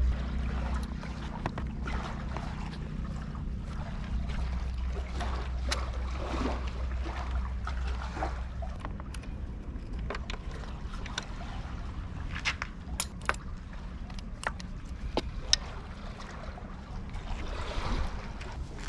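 A boat engine running with a steady low hum, loudest in the first second and then settling lower. Scattered clicks and knocks of handling run over it.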